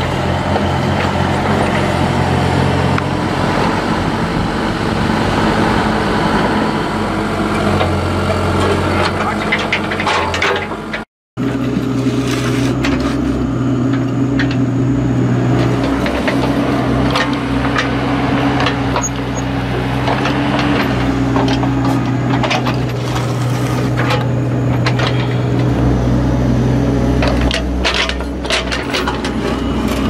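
Bobcat E32 mini excavator digging: its diesel engine runs steadily under hydraulic load, its pitch shifting as the arm works. The bucket scrapes and knocks through soil and stones, with many short cracks and knocks in the second half. The sound cuts out briefly about eleven seconds in.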